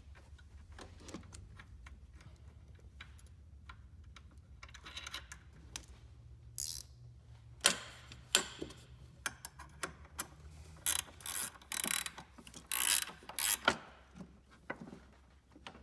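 Ratchet wrench clicking in repeated short strokes as a nut on the snowmobile's steering post is tightened. The strokes are scattered at first and come thickest in the second half.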